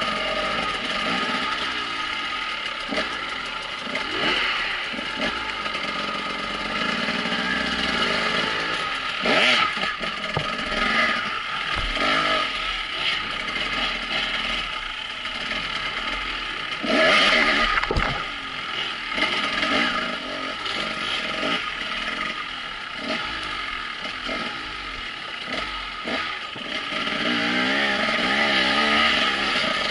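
Dirt bike engines running on a rough trail ride, the throttle opening and closing so the pitch keeps rising and falling. There are louder surges about a third and just over half the way in, with clatter and scraping from the bike over the rough ground.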